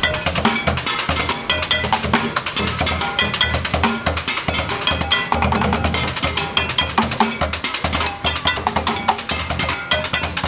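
Music with a steady drum beat and a busy clatter of percussive knocks over it.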